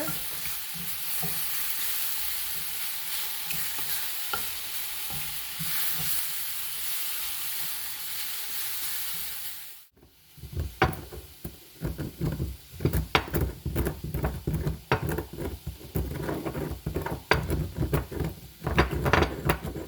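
Mushrooms and onions sizzling in a frying pan, a steady hiss. About halfway through the sound cuts out for a moment, then a utensil knocks and scrapes against the pan in quick irregular strokes as they are stirred, over a fainter sizzle.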